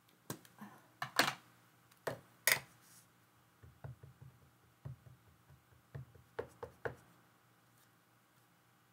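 Clear acrylic stamp block knocking and clacking against an ink pad as a rubber-backed stamp is inked: a few sharp clacks, then a run of softer, quicker taps, stopping about seven seconds in.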